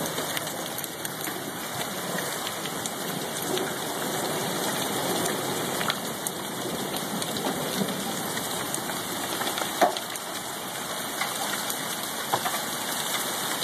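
Hail mixed with rain falling steadily: a dense hiss with scattered sharp ticks of hailstones striking, and one louder knock about ten seconds in.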